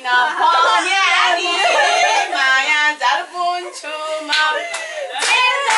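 Women and children singing together. Hand clapping joins in near the end.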